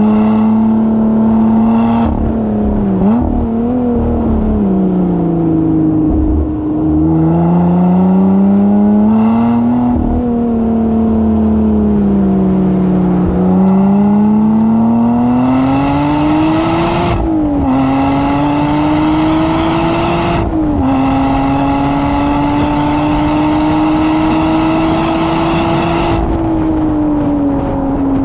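A vehicle's engine lapping a racing circuit at speed. The revs rise and fall again and again. Later it climbs steadily with two quick drops in pitch at upshifts, then holds fairly high before easing off near the end.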